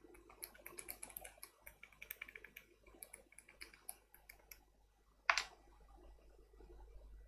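Light, rapid, irregular clicking for about four seconds, then a brief louder rustle about five seconds in.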